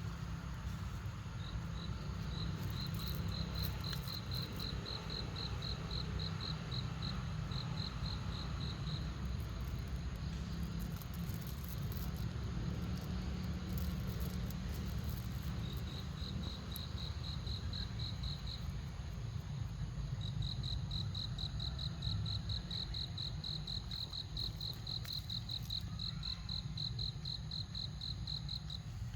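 A cricket chirping steadily at about four high-pitched chirps a second, in three long runs with pauses between, over a steady low rumble.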